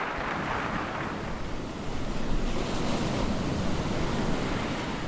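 Ocean surf washing in a steady rush that swells a little in the middle.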